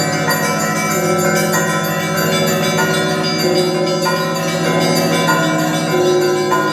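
Russian Orthodox monastery bells ringing a festal Christmas peal. Many bells sound together, with frequent strikes of the smaller bells over the steady ringing of the larger ones.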